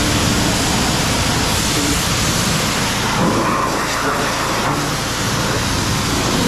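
Pressure-washer wand spraying a jet of water onto a tractor's tyre and loader arms: a steady, even hiss.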